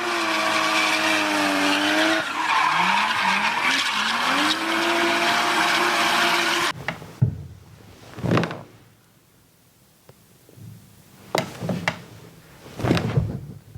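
A loud motor-vehicle sound, an engine with shifting pitch over a screeching hiss like tyre squeal, cuts off suddenly about seven seconds in. It is followed by a few short sharp sounds, spaced out over a much quieter stretch.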